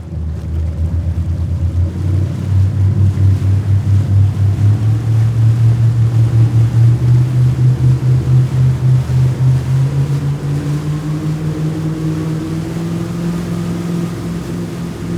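Speedboat motor running with a pulsing throb, its engine note climbing steadily as it speeds up, over water and wind noise.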